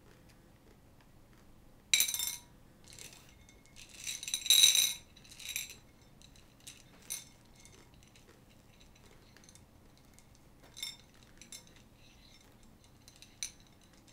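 Hard-shelled candy-coated chocolates clicking and rattling against a plate as fingers push and sort them. There is a loud click about two seconds in and a busier clatter around four to five seconds, then scattered lighter clicks.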